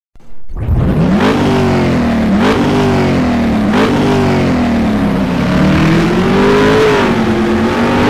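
Car engine accelerating hard through the gears: the pitch climbs and drops sharply at three gear changes about a second apart, then rises more slowly and holds high.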